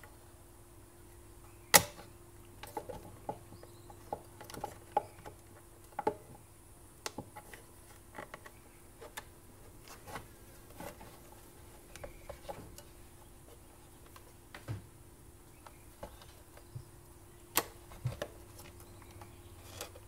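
Hard plastic housing parts of a coffee maker being handled and fitted together: scattered irregular clicks and knocks, the two sharpest about two seconds in and near the end, over a faint steady hum.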